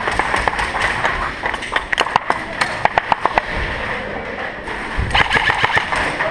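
Airsoft guns firing: strings of sharp pops, about five a second through the middle and again near the end, over steady background noise.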